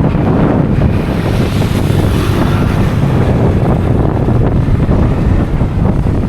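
Steady wind buffeting on the microphone from riding a motorbike, with the bike's running and road noise underneath.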